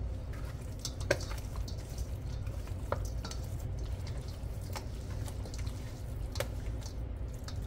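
Light clicks and taps of kitchen handling, a few slightly sharper ones about a second apart, over a low steady hum.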